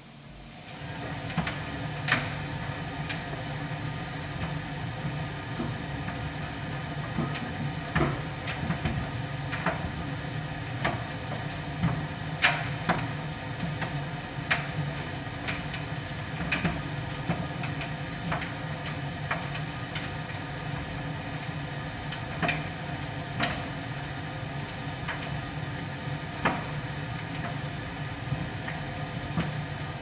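Miele PT 5136 tumble dryer running partway through a drying cycle: a steady motor and drum hum, with irregular sharp knocks and clicks every second or two as the laundry tumbles in the drum.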